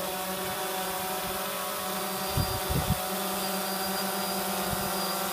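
DJI Phantom 2 quadcopter hovering, its four motors and propellers giving a steady buzzing hum made of several pitched tones. A few brief low thumps come near the middle.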